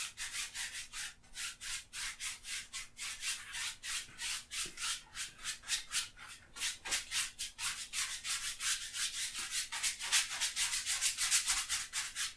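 A large flat bristle brush scrubbing oil paint onto a stretched canvas in quick, short back-and-forth strokes, a rapid run of scratchy scrapes at about four a second.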